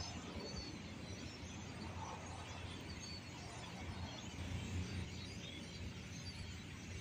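Flock of starlings calling from a treetop: scattered short, high chirps and chatter over a steady low rumble.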